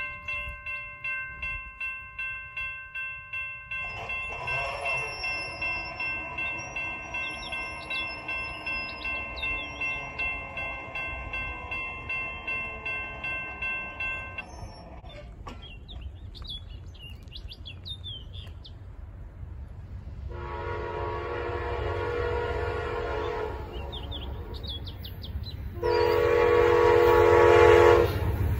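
A railroad crossing bell dings steadily, about two and a half strokes a second, with birds chirping, and stops about halfway through. Then an approaching Amtrak GE Genesis diesel locomotive sounds two long horn blasts, the second one louder, over the rising rumble of the train: the start of the long-long-short-long grade-crossing signal.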